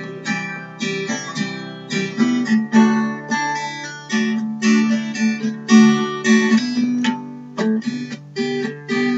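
Acoustic guitar strummed in a steady rhythm with no voice, the chords dropping out briefly about seven seconds in.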